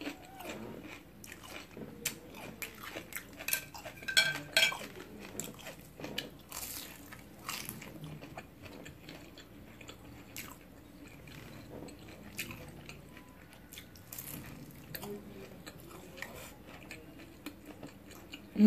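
Close-up eating sounds: wet chewing of black-bean-sauce noodles and bites into a fried egg roll, with irregular clicks and clatter of chopsticks against a plate. The sounds are busiest a few seconds in.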